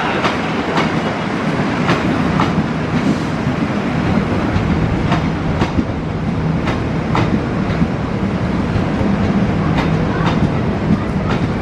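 Passenger train rolling past at speed: wheels click over the rail joints in pairs about half a second apart, recurring every second or two, over a steady rumble.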